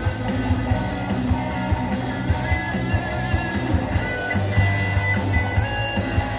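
Live rock band playing an instrumental passage: electric guitars, bass guitar and a drum kit keeping a steady beat, with no singing.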